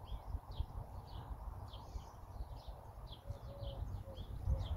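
Small birds chirping, a string of short high calls a few times a second, over a steady low rumble. A few fainter, lower short notes join in during the second half.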